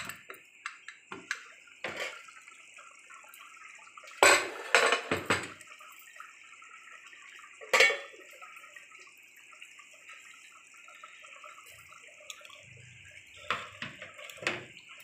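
Metal pressure cooker lid being taken off and handled, with scattered clanks, the loudest about four to five seconds in and again near eight seconds, over a steady hiss. The chickpea curry inside is bubbling.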